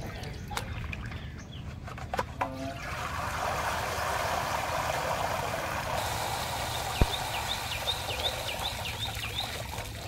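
Water draining through the holes of a perforated metal colander of rinsed fish heads and splashing onto the ground, a steady rush that starts about three seconds in after some light splashing. Near the end, birds chirp in a quick run of short calls.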